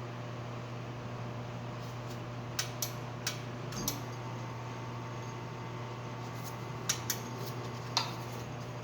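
Scattered light clicks and taps of coffee grinder parts being handled and fitted, about seven in all, over a steady low hum.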